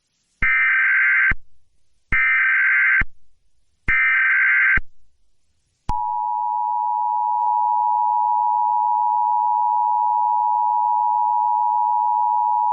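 Emergency Alert System SAME header: three identical short bursts of warbling data tones, each under a second long, then the steady two-tone EAS attention signal starting about six seconds in. Together they mark the start of an emergency alert broadcast.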